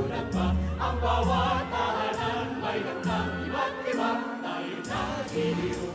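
Music: a choir singing with instrumental backing.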